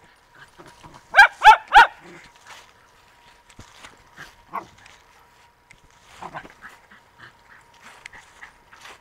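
Small poodle barking three times in quick succession, about a second in.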